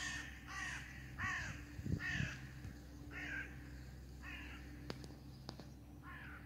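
A bird calling over and over with short calls, each falling in pitch: six in the first four seconds, a pause, then another near the end. Two sharp clicks come about five seconds in.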